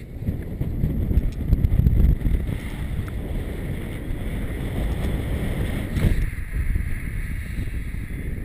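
Wind buffeting the microphone of a camera on a paraglider in flight: a steady low rush with no pitch, strongest about one to two seconds in. A single sharp click about six seconds in.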